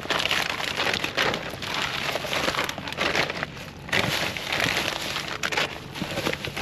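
Plastic bags and packaging crinkling and rustling as gloved hands rummage through trash in a dumpster, shifting bags, cat-treat pouches and cardboard boxes.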